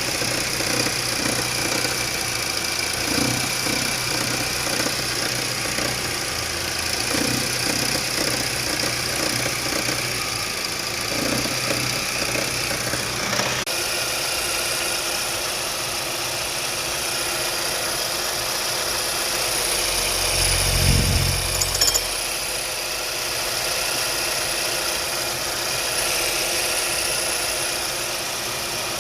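Chevrolet Captiva's 2.4-litre four-cylinder engine running, with a repeated knocking from the accessory belt drive area. The sound changes character about halfway, and there is a brief louder low rumble about two-thirds through.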